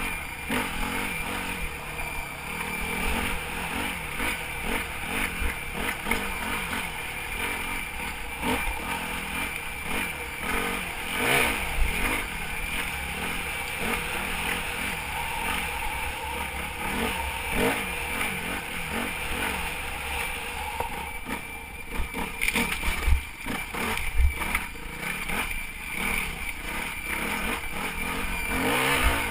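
Yamaha WR250F's single-cylinder four-stroke engine revving up and down as the dirt bike is ridden off-road, with knocks and a few sharp thumps from the bike over rough ground. A thin, steady high whistle runs through the engine sound, matching the whistling noise whose cause the rider could not find.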